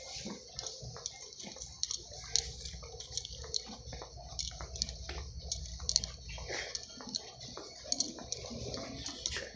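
Irregular clicks and rubbing from a handheld phone being carried, over a low rumble.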